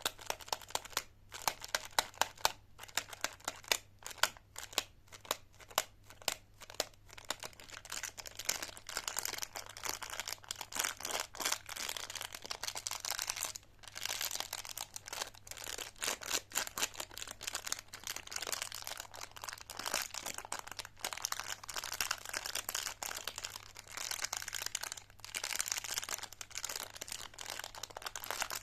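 Plastic candy wrappers crinkling: sharp separate crackles for the first several seconds, then a denser, continuous crinkle.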